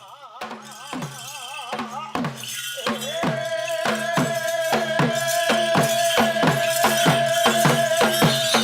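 Percussion-led music: drum strokes with a jingling rattle, speeding up to about four a second and growing louder over the first few seconds, over a low steady drone. A wavering melody line at the start gives way to a long held note.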